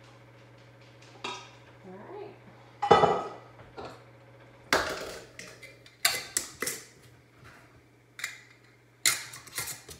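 Kitchen clatter of a stainless steel pot, spatula, plastic funnel and glass jars: scraping and a series of sharp knocks and clinks, the loudest about three seconds in as the pot goes into the sink, with more clinks through the second half, over a steady low hum.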